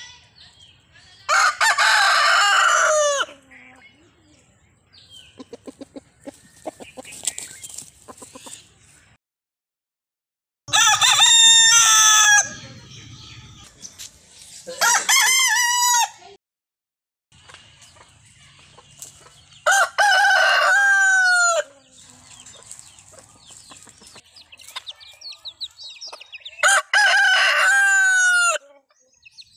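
Roosters crowing: five long crows spread through, each a loud drawn-out call whose pitch drops at the end, with softer clucking between them.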